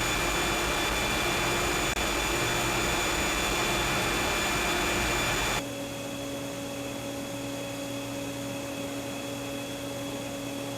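Recorded centrifugal chillers running: first a loud, steady rushing noise with high steady whines, the open-drive YK chiller; about five and a half seconds in it switches abruptly to a much quieter steady hum with low tones, the YMC² magnetic-bearing chiller.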